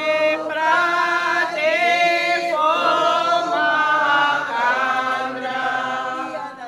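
A group of women singing together unaccompanied, in slow held notes, dropping away near the end.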